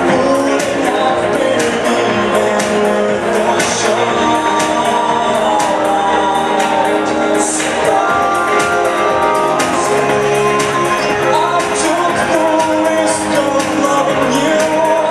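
A new-wave rock band playing a song live, loud: a sung lead vocal over a steady drum beat, bass, guitars and keyboards.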